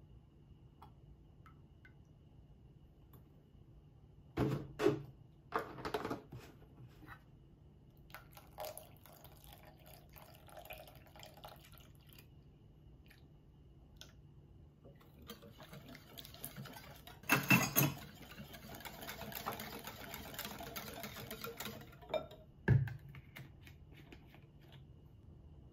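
Milk poured from a plastic jug into a steel measuring cup and then into a glass bowl of beaten eggs, with several knocks as the jug and the steel measuring cups are set down on the counter; the loudest knocks come about two thirds of the way through, alongside a stretch of soft pouring.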